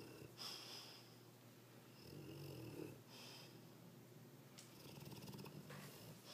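A sleeping Dogue de Bordeaux snoring faintly, in slow, noisy breaths while it dreams.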